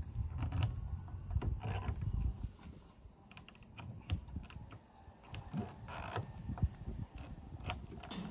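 Small metallic clicks and rattles of a key being turned in the locking fuel filler cap of a Morgan 3 Wheeler as the cap is unlocked and opened. A low rumble runs under the first two seconds or so.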